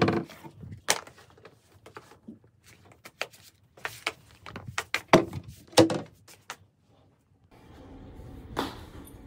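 A wooden shoe locker and rubber slippers being handled: a series of knocks and clunks as the cabinet door and shelves are touched and the slippers are taken out and dropped to the floor. Near the end a steady background noise comes in, with one more knock.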